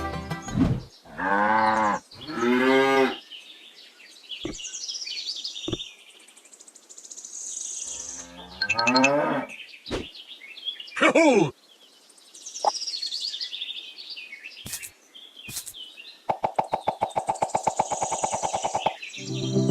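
Farm animal calls: cattle mooing in several separate calls that bend in pitch, then a rapidly pulsing bleat near the end, with faint bird chirps in between.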